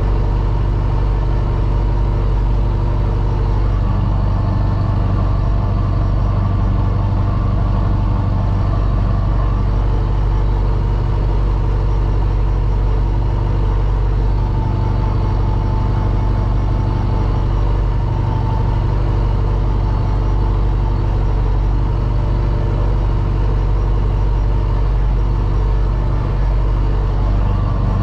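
Kubota tractor's diesel engine running steadily with the PTO-driven air-blast orchard sprayer working behind it, heard from inside the cab: an even, unbroken drone.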